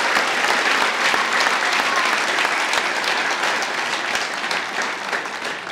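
A crowd applauding, a dense patter of many hands clapping that begins to die away near the end.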